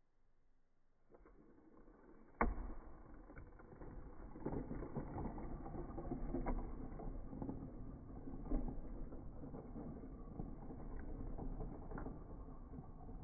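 TrackMaster motorised toy engines pushed by hand on plastic track: a sharp plastic click about two and a half seconds in, then a steady rattling of wheels and gears with scattered clicks.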